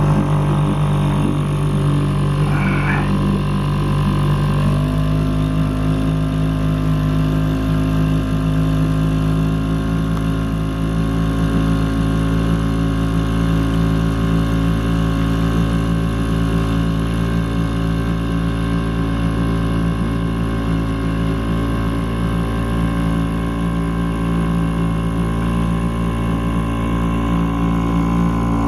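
A small motorboat's engine running steadily at constant throttle. Its note changes once, about five seconds in, and then holds.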